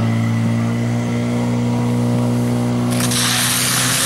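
Fire pump engine running steadily at high speed. About three seconds in, a loud hiss of water jets spraying from the hose nozzles joins it.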